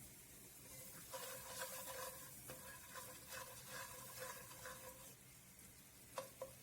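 Chopped onion sizzling faintly in hot oil while a spatula stirs it in the pan, with repeated light scraping strokes for a few seconds. Two light clicks come near the end.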